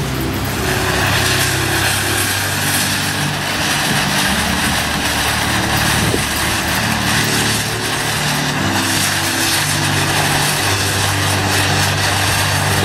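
A ground fountain firework catches about half a second in and sprays sparks with a steady, loud hiss. Background music with low held notes plays underneath.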